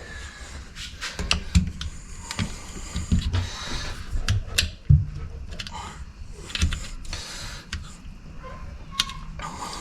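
Wrenches and metal valve parts clinking and knocking at irregular intervals as the control levers are unbolted from a tractor hydraulic valve.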